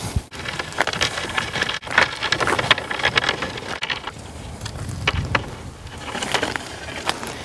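Bundle of long black walnut whips rustling, crackling and scraping as it is carried and handled, with many small clicks of wood against wood. The sound breaks off abruptly for a moment a few times.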